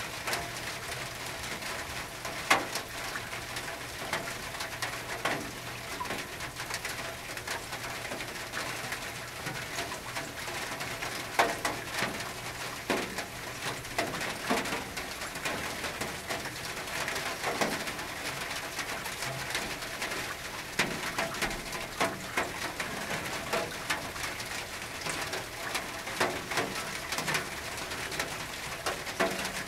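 Rain on a tin roof: a steady patter with single heavy drops striking the metal at irregular moments, the loudest about two and a half seconds in and again about eleven seconds in.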